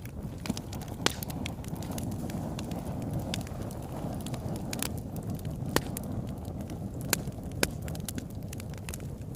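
Wood fire burning in a fireplace: a steady low rush of flames with irregular sharp crackles and pops, a few of them louder.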